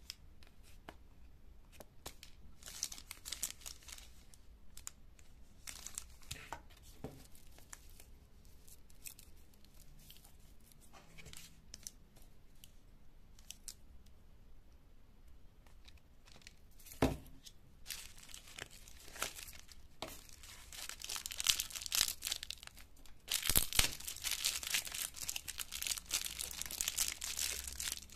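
Plastic candy wrapper being handled: scattered light rustles and clicks, one sharp knock, then from about twenty seconds in, a continuous crinkling and tearing as the foil wrapper of a large lollipop is pulled and peeled open.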